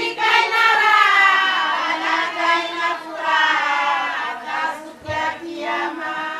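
Women's voices singing a slow song, holding long notes that slide from one pitch to the next.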